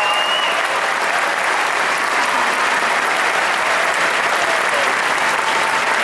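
Audience applauding steadily after a speech, with a brief high whistle rising and holding right at the start.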